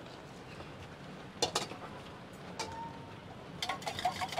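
Eggs frying at a street food cart: a steady hiss with sharp metal clinks of cooking utensils, a loud one about a second and a half in and a quick run of them near the end.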